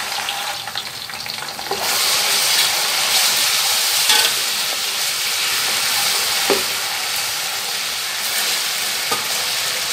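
Sliced onions and ginger-garlic paste sizzling in hot oil in a metal pan, stirred with a wooden spoon. The sizzle grows louder about two seconds in.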